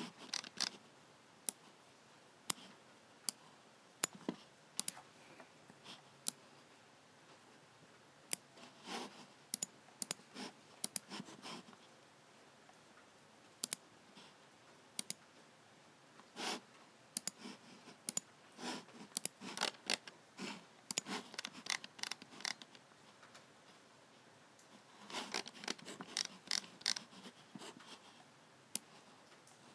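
Logicool G7 computer mouse buttons clicking at an irregular pace, single clicks and quick runs of clicks, with denser flurries near the middle and again near the end.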